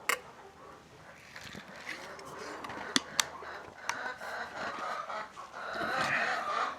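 Chickens clucking, building up in the second half, with a few sharp knocks, two of them close together about three seconds in.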